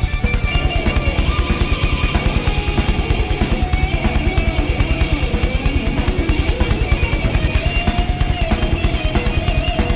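Thrash metal band playing live with no vocals: distorted electric guitar lines over a rapid, steady kick drum.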